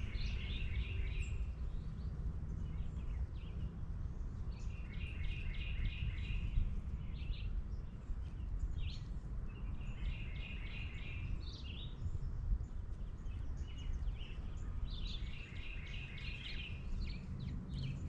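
A songbird sings the same short phrase of quickly repeated notes four times, about every five seconds, over a steady low rumble of background noise.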